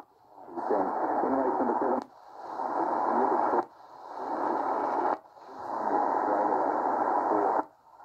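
XHDATA portable radio being tuned across the AM medium-wave band: muffled, noisy snatches of distant stations, each cut by a brief silence as the radio steps to a new frequency and then fading back in, four times.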